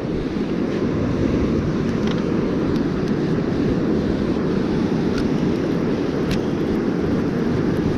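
Steady low rumble of wind buffeting the microphone over ocean surf on the beach, with a few faint ticks.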